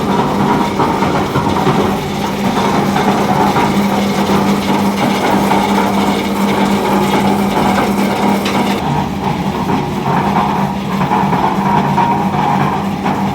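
Concrete mixer with a 5 hp three-phase electric motor running: a steady motor hum under a loud, rough clatter from the machine. About nine seconds in the hum stops while the rattling noise carries on.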